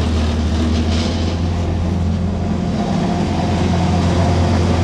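An engine running at a steady speed, a constant low drone, with a papery rustle about a second in as the vacuum bag is handled.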